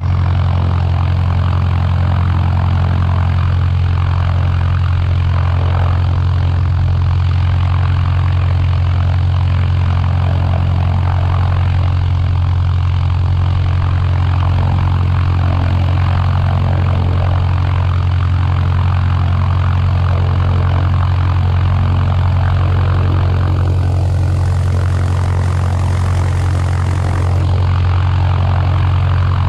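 Thorp T18 light aircraft's piston engine and propeller running at a steady, unchanging speed, a deep even drone.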